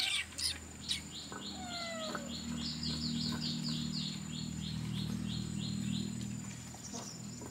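A small bird calling a rapid run of short, high chirps, several a second, for about five seconds, with a couple of lower falling whistles near the start, over a steady low hum.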